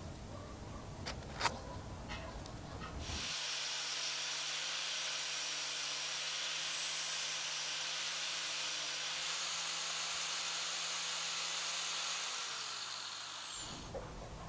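A motor-driven sanding disc starts about three seconds in and runs with a steady high whine and the hiss of a wooden block being ground against it, shaping the block to a traced spoon-lure outline. Near the end the motor is switched off and its pitch falls as the disc winds down.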